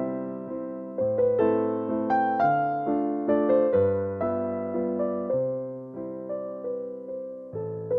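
Background piano music: a slow melody of single struck notes, each fading out, over held low notes.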